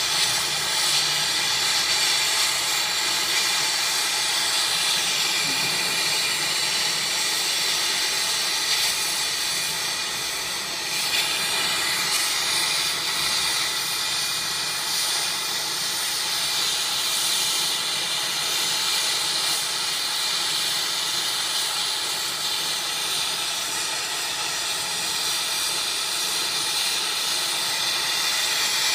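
Soldering torch flame burning with a steady hiss while a leak on an air-conditioner coil is soldered.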